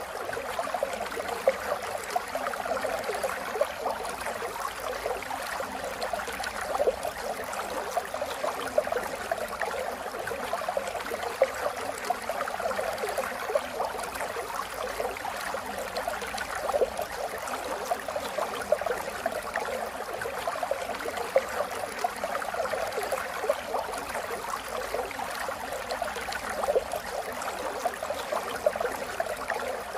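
Steady rain: a dense, continuous patter of drops with small irregular spikes.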